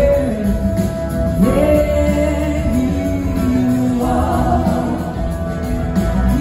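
Live band playing a song with electric guitars, drums and keyboards, and singing with long held notes and a rising slide into a note about a second and a half in, heard from the audience.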